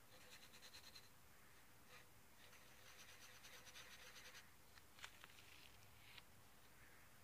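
Yellow wooden pencil scribbling faintly on a pad of lined paper: two runs of quick back-and-forth strokes, about ten a second, then a few light ticks near the end.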